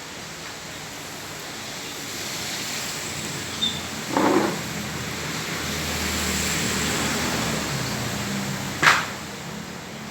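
Heavy rain falling on a flooded street, a steady hiss that swells through the middle with a low hum beneath it. A brief louder sound comes about four seconds in and a sharp click near the end.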